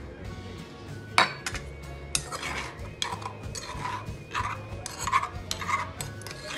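Stone pestle grinding and knocking in a stone mortar. There is one sharp knock about a second in, then a run of short scraping strokes at about two a second.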